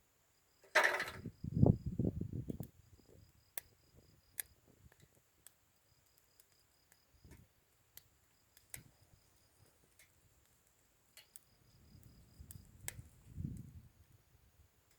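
Campfire crackling with sporadic sharp pops, under crickets chirping in short pulsed trains. About a second in there is a brief loud rustle followed by a few low thuds, and softer low thuds again near the end.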